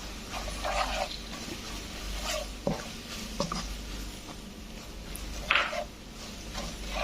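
Spatula stirring and scraping chili powder and turmeric through hot oil in a pan, in short irregular strokes with a few squeaky scrapes.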